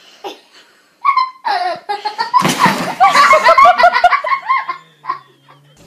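People laughing in several loud bursts, with a short loud rush of noise about two and a half seconds in.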